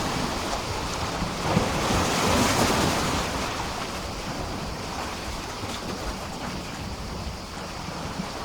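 Sea waves washing against a pier: one wave swells and breaks about two seconds in, with a sharp slap just before, then the water settles into a quieter, steady wash and lapping.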